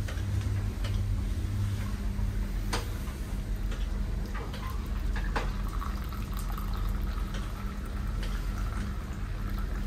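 Hot milky tea poured from a thermos flask into a paper cup: a steady stream of liquid filling the cup, over a steady low hum.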